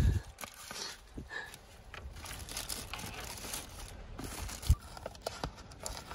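Clear plastic bag crinkling and rustling as it is pulled off a paper pastry box by hand, with small crackles throughout and one soft thump about three-quarters of the way through.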